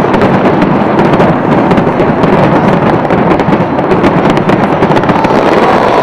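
New Year's fireworks show going off in a dense, continuous barrage: rapid overlapping bangs and crackling with no let-up.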